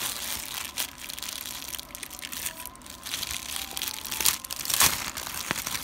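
Plastic mailer envelope crinkling and rustling as hands handle and pull it open, with irregular crackles and a louder crackle near the end.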